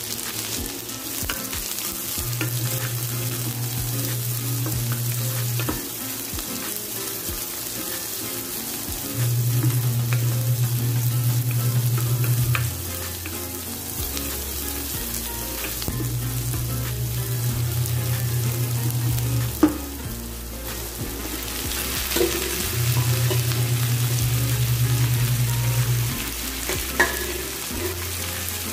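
Sliced onions, garlic and ginger sizzling as they fry in hot oil in a pan, with the scrape and tap of a spatula as they are stirred. A low steady tone switches on and off every few seconds underneath.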